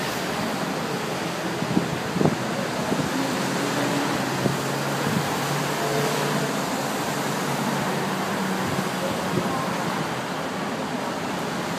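Steady wash of outdoor background noise, with a few faint short knocks in the first half and faint distant voices.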